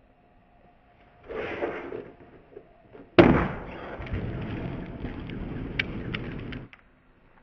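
Skateboard taildrop off concrete steps: a short scrape about a second and a half in, then a sharp, loud smack as the board lands on the sidewalk a little after three seconds, followed by the wheels rolling on concrete for about three and a half seconds before it cuts off.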